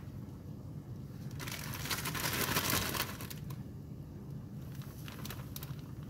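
Plastic bag of frozen chopped spinach crinkling as it is shaken out, the frozen pieces rustling into a nonstick pot. The crackling is loudest from about a second and a half to three seconds in.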